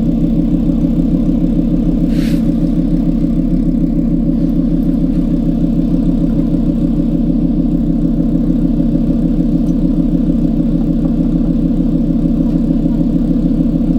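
Car engine idling steadily with a loud, even low drone, unusually loud for a car at idle.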